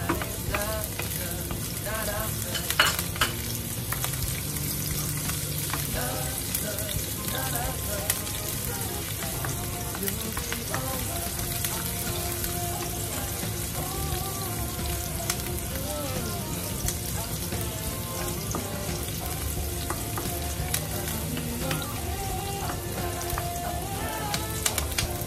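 Chopped onion sizzling as it fries in hot oil in a nonstick wok, stirred with a wooden spatula. The sizzle is steady, broken by a few light scrapes and knocks of the spatula on the pan, the sharpest about three seconds in.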